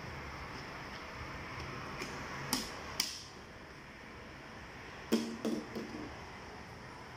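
Engine oil pouring from a plastic bottle into a funnel on the engine's filler neck, a steady gurgling hiss that stops about three seconds in after two sharp clicks. Later comes a short cluster of hollow plastic knocks as the empty oil bottles are handled and set down.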